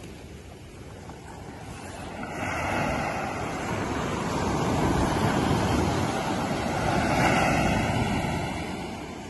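Ocean surf breaking and washing up a sandy beach. It swells about two seconds in and eases off near the end.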